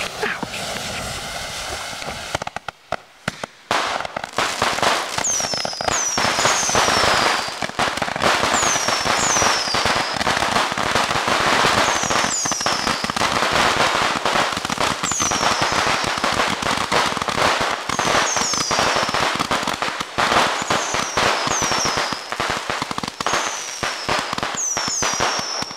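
Ground fountain firework burning in a tube, a hiss at first, then dense, continuous crackling as it sprays sparks. Short high falling whistles, mostly in pairs, recur every few seconds over the crackle.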